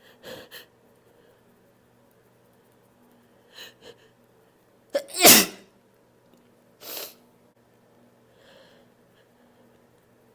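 A person's unstifled sneeze: two pairs of short, sharp breaths build up, then one loud sneeze about five seconds in whose pitch drops, followed by a shorter burst of breath.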